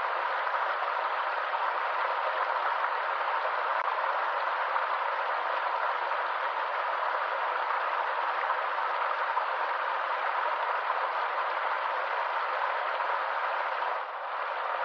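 Stream water rushing in a steady, even flow, dipping briefly in level near the end.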